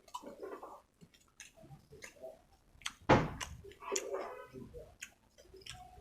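Close-miked chewing and wet mouth sounds of someone eating rice with chicken curry: scattered smacks and clicks, the loudest a full, heavy smack about three seconds in.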